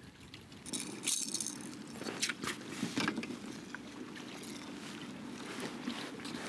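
Boat motor running steadily, with several brief splashes as a hooked lake trout thrashes at the surface and is grabbed by hand.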